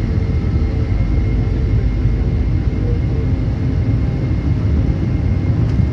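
Boeing 717 taking off, its twin rear-mounted turbofan engines at takeoff thrust: a loud, steady deep rumble with a thin, high steady whine over it.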